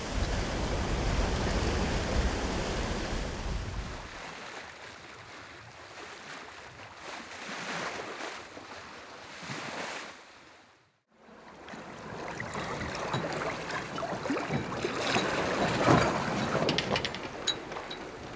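Water washing and splashing along the hull of a sailboat under way in calm seas, with wind buffeting the microphone for the first few seconds. The sound drops out briefly a little past the middle, then returns with sharper splashes, loudest near the end.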